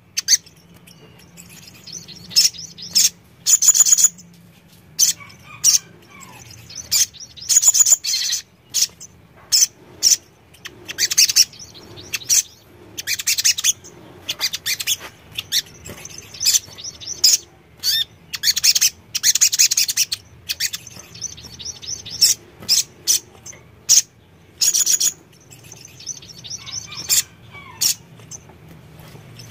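A sogon sunbird calling and singing. It gives sharp, high chirps and short trilled bursts in quick clusters, with brief pauses between them.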